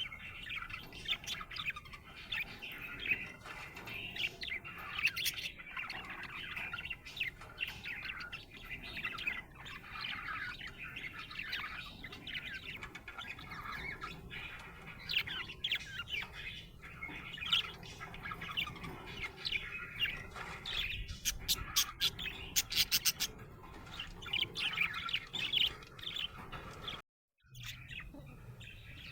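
Budgerigar chirping continuously in quick, busy chirps, with a short run of sharp clicks about three quarters of the way through and a brief cut-out of all sound near the end.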